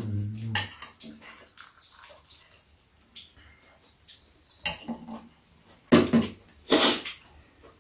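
Eating at the table: spoons clicking and scraping against bowls, with a few short wet slurps near the end and quiet gaps between.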